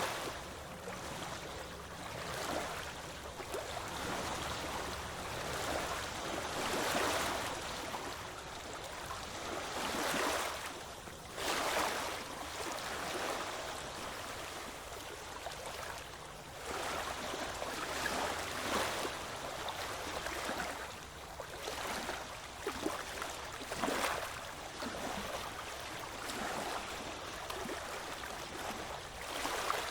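Ocean waves washing onto the shore: a steady rush of surf that surges louder every few seconds as each wave breaks.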